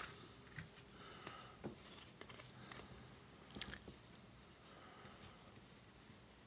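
Topps baseball cards being slid through one at a time by hand: faint papery rustles and light clicks of card stock, with one sharper click about three and a half seconds in.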